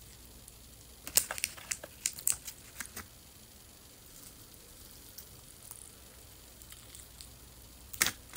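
Someone biting into a large piece of karaage (Japanese fried chicken) with crisp batter: a run of short sharp crunches and crackles about a second in, then quiet chewing, and one louder crunch near the end.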